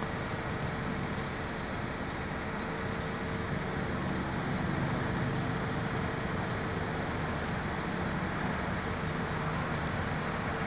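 Steady outdoor background noise: an even low rumble and hiss with a faint steady hum, and a few faint high ticks.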